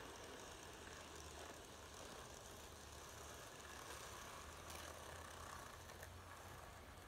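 Faint running noise of TOMIX N gauge model trains on the track: a soft, even rattle of small wheels on rail, with a couple of light clicks in the second half.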